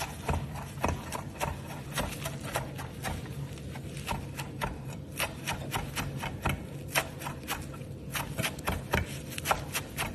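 Chef's knife chopping fresh basil, parsley and dill on a wooden cutting board: a quick, steady run of blade strikes on the wood, about four a second.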